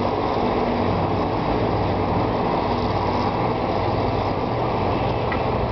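Diesel passenger train running: a steady rumble with a low engine hum underneath.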